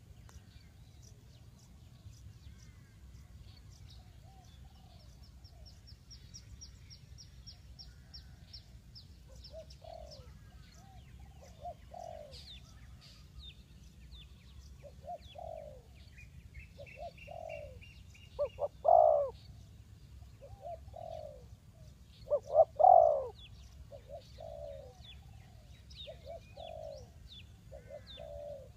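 Spotted doves cooing: short low coo phrases repeated over and over, two of them much louder and closer about two-thirds of the way through. Small birds chirp and trill faintly in the background.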